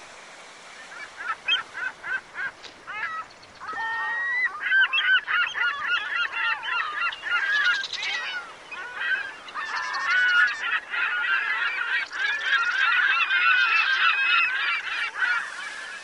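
A flock of birds calling: scattered calls at first, building about four seconds in to a dense chorus of many overlapping calls, which stops abruptly at the end.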